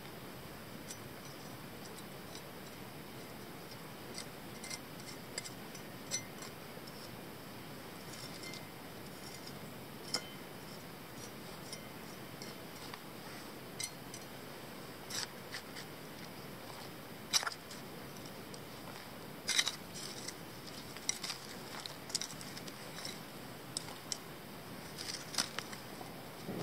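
Spent charcoal and ash in a campfire pit being scraped and handled: scattered small clicks, clinks and scrapes over a quiet background, a few sharper ones in the second half.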